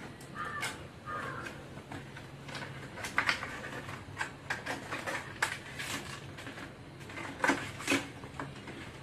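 Irregular crinkling, rustling and clicking of packaging as a new windscreen wiper blade is pulled out of its cardboard box and wrapper and handled, with a few sharper clicks near the middle and toward the end.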